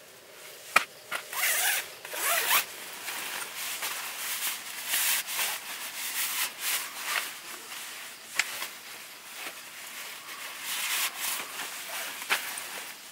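A zipper being pulled in short rasps on a nylon bag, with nylon fabric rustling as the bag is handled and stuffed into a compression sack. A sharp click about a second in is the loudest sound, and fainter clicks come later.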